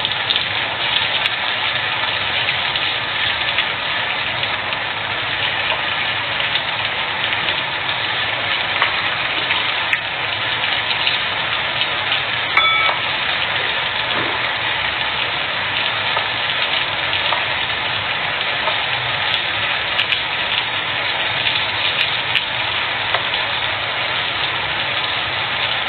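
Oil frying in a pan, a steady sizzle with fine crackle, and a single clink about halfway through.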